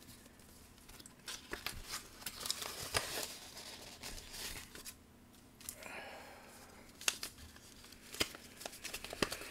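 A paper envelope torn open by hand, its paper rustling and crinkling in short irregular crackles, with a quieter pause about halfway through.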